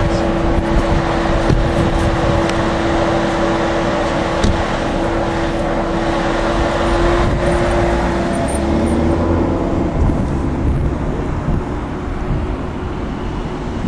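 A motor vehicle running, with a steady engine hum over road and wind noise; the hum slides lower and fades about eight to ten seconds in.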